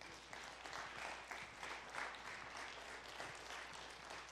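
A congregation applauding, a faint, steady patter of many hands clapping in praise.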